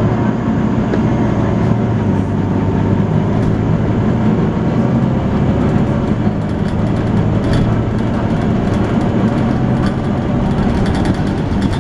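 Volvo B9TL double-decker bus's six-cylinder engine running steadily under way, with the vacuum-cleaner-like hum known as 'hoovering'. Light clicks and rattles come and go, more often in the second half.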